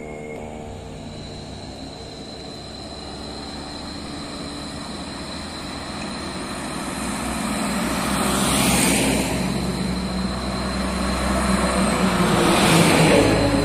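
Road traffic on a hill: truck and car engines running under load, growing louder as vehicles come up. Two vehicles pass close by, about 9 s in and again near the end, each a swell of engine and tyre noise.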